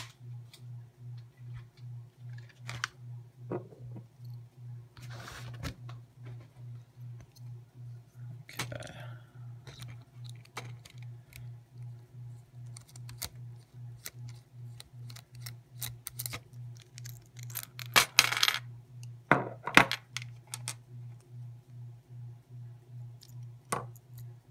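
Small metal clicks, scrapes and clinks of a Phillips screwdriver and padlock parts as a padlock is taken apart, with a louder metallic rattle about 18 seconds in and another about a second and a half later. A steady low hum, pulsing about twice a second, runs underneath.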